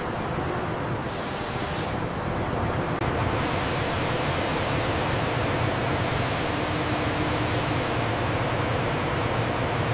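Steady din of sawmill machinery, a dense rushing noise that shifts abruptly in character several times, about a second in, then at two, three, six and eight seconds.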